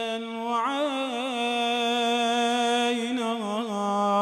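A man's voice chanting an Arabic Shia supplication, holding one long vowel with melodic turns about half a second in and again around three seconds, then settling onto a slightly lower note near the end.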